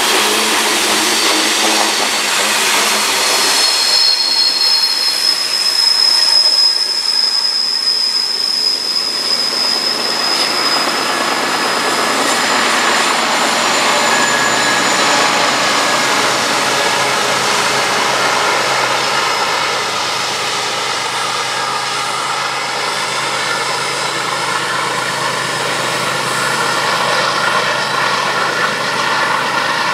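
Freight train boxcars rolling past on a curve, with a long high-pitched wheel squeal for several seconds. About halfway through, pusher diesel locomotives pass working upgrade, with a steady engine drone.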